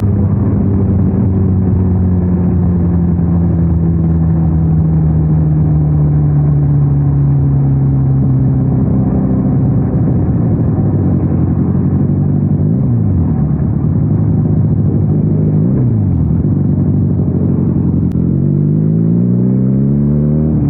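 Benelli 302R motorcycle's 300 cc parallel-twin engine under way, its pitch easing down slowly, then dipping and recovering twice before climbing steeply as it accelerates near the end.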